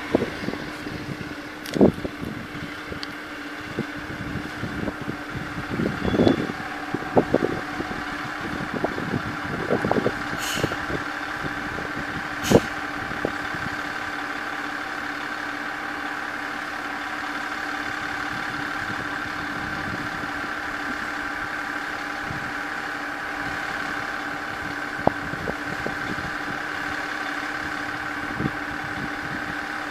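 Diesel railcar's engine running with a steady idling hum. Scattered low thumps and two sharp clicks come in the first half, then the hum carries on alone.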